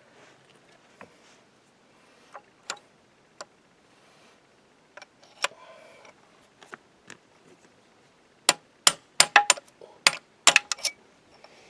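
Hammer striking a pin punch to drive roll pins out of a tractor's steel clutch release forks. A few scattered light taps and clinks, then near the end a quick run of about a dozen sharp metallic blows in under three seconds.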